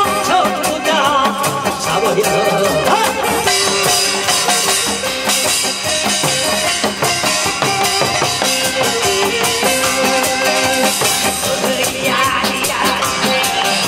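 Live pumba troupe music: janggu, buk and a drum kit with cymbals beating a steady rhythm under a melody, which wavers over the first few seconds and again near the end.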